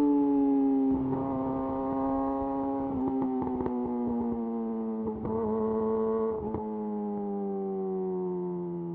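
Yamaha YZF R6 inline-four running through a de-catted Akrapovic slip-on exhaust, its note falling slowly in pitch as the bike slows.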